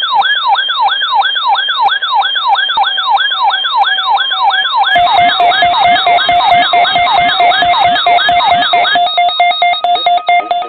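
Electronic siren-style emergency alert tone, loud and clean. A fast rising-and-falling wail repeats about three times a second, changes about halfway in to a steady tone with sweeps over it, then near the end to a steady tone with rapid pulsing higher beeps.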